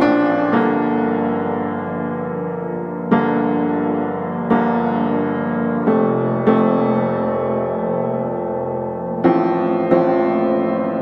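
Background music: slow solo piano, chords struck every one to three seconds and left to ring out and fade.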